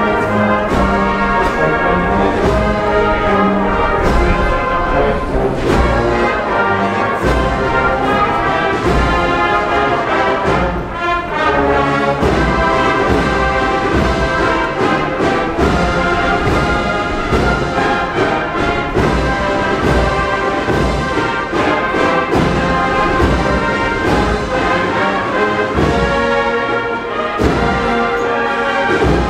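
Holy Week procession band playing a march: brass carrying the melody over a steady drum beat.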